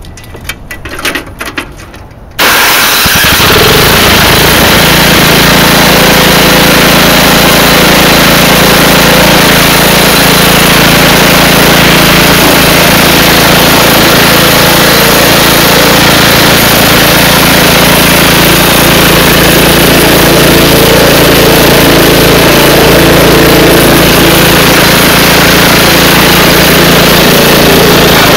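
Toro snowblower engine starting after a few faint clicks and knocks, catching suddenly about two seconds in, then running loud and steady.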